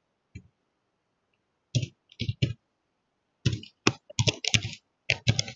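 Computer keyboard typing: a single keystroke, then three quick strokes a little under two seconds in, a faster run of strokes from about three and a half seconds, and a few more near the end, with dead silence between the runs.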